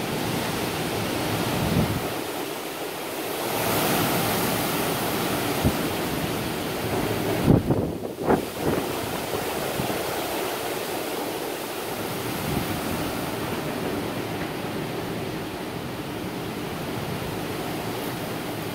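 Hurricane-force wind gusting and buffeting the microphone, with a steady rushing noise that swells and eases. A few sharp knocks stand out in the middle, the loudest sounds in the stretch.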